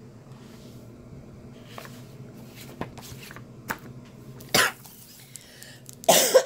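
Handling of a plastic-wrapped sketchbook on a table: scattered soft taps and rustles over a low steady hum. A short loud cough comes near the end.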